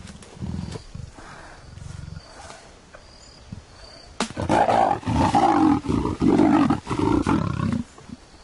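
A leopard held in a foot snare growling low, then from about four seconds in snarling loudly several times in quick succession: the defensive snarls of a trapped, angry cat.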